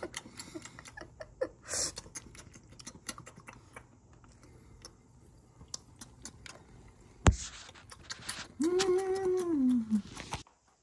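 Scattered light clicks and taps as a ceramic pet water fountain is handled on a wooden floor, with a sharp knock about seven seconds in. Near the end comes a drawn-out voice-like sound that falls in pitch, then the sound cuts off.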